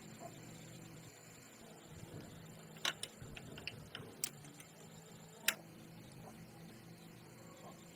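A few short, sharp clicks and taps, the loudest about three, four and five and a half seconds in, over a faint steady hum.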